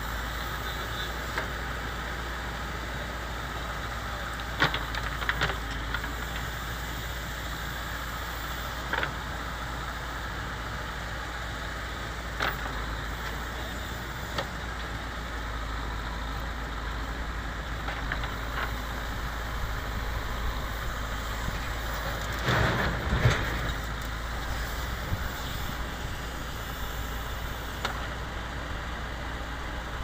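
Terex backhoe loader's diesel engine running steadily while the backhoe arm digs soil, with scattered clanks and scrapes of the bucket in earth and stones. A cluster of louder knocks comes about three-quarters of the way through.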